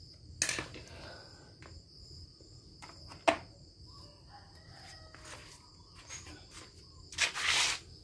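Steady high insect chirring in the background, with a few sharp knocks and a louder rustling burst near the end from handling. Faint bird calls come in about halfway through.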